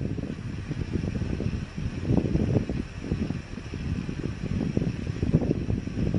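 Wind buffeting the microphone: an uneven low rumble that swells about two seconds in and again near the end.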